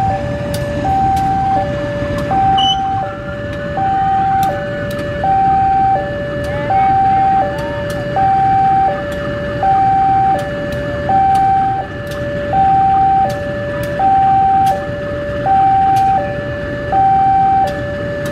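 Level-crossing warning alarm sounding a steady two-tone electronic ding-dong, high and low notes alternating about once every 1.5 s. Underneath it runs the low rumble of a diesel-electric locomotive moving slowly over the crossing.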